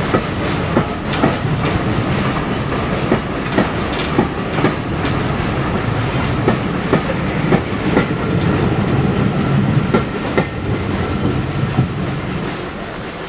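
A train rolling past on jointed track: a steady rumble with the wheels clicking over the rail joints about twice a second, starting to fade away near the end.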